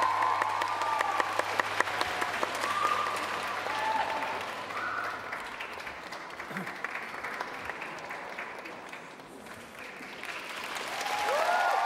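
Audience applauding, with voices among the crowd. The clapping is dense at first, thins out in the middle and swells again near the end.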